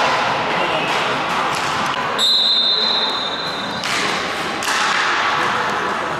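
A referee's whistle blown once in a long steady blast of about a second and a half, over a steady din with scattered knocks.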